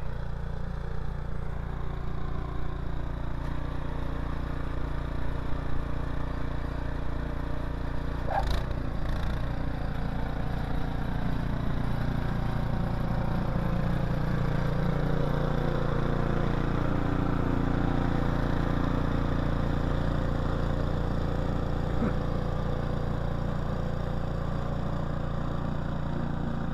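Small petrol engine of a snowblower running steadily, with one sharp knock about eight seconds in.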